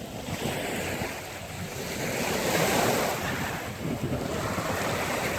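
Wind buffeting the microphone: a steady rushing noise with a fluttering low rumble, swelling about two to three seconds in.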